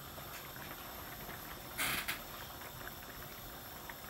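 Fish curry simmering in a frying pan: faint, steady bubbling with scattered small pops, and a short, louder hiss about two seconds in.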